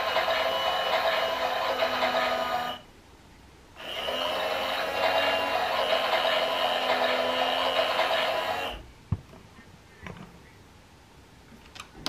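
Toy Miele Softtronic washing machine's small battery motor turning the drum on a wash, a steady whirring hum. It stops for about a second near three seconds in, runs again for about five seconds, then stops, followed by a few faint clicks.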